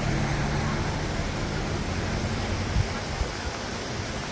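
Steady rush of a roadside mountain waterfall, Bust Your Butt Falls. A low steady hum runs under it for the first two seconds or so, then fades.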